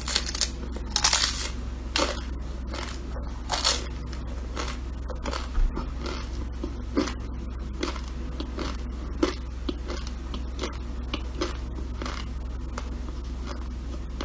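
Irregular crunching and crackling sounds, with a few louder crunches in the first four seconds, over a steady low hum.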